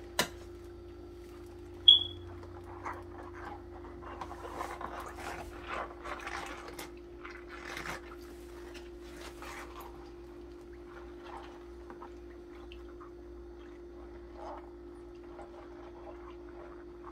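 A stainless steel mosquito clamp being scrubbed with a brush in a basin of soapy water: wet brushing and sloshing, loudest in the middle, with a single sharp metallic clink about two seconds in. A steady low hum runs underneath.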